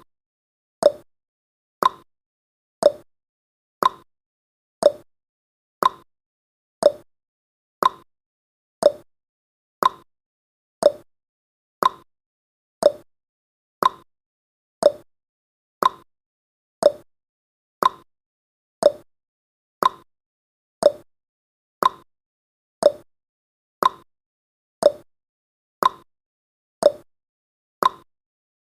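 Countdown timer's ticking sound effect: a short, sharp clock tick once a second, alternating slightly higher and lower like a tick-tock.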